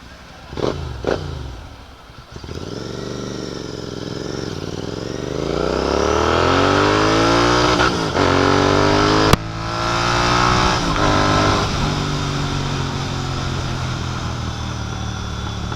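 Royal Enfield Continental GT 650's 648 cc parallel-twin engine, breathing through a Red Rooster aftermarket exhaust, pulling hard under acceleration on the move. Two short sharp sounds come about a second in. Then the engine note climbs in pitch, breaks at a gear change about eight seconds in, and settles to a steady cruise near the end.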